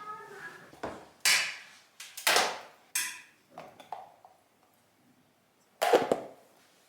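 Kitchen clatter: dishes and utensils being handled and set down, a string of sharp clunks and clinks, some briefly ringing, mostly in the first few seconds with one more near the end.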